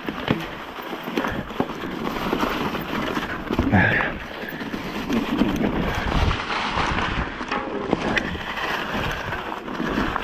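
Mountain bike rolling fast down a rough trail, its tyres crunching over dry leaf litter while the bike rattles and jolts over the bumps. A short louder sound comes about four seconds in.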